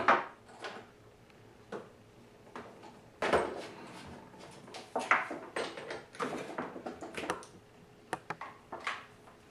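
Plastic pressure-washer parts being handled and fitted together during assembly: uneven knocks, clicks and scrapes, with a few quick clicks near the end.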